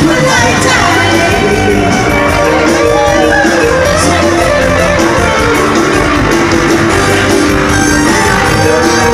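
Loud, upbeat amplified stage music of a Thai Isan pop song, played over a PA system.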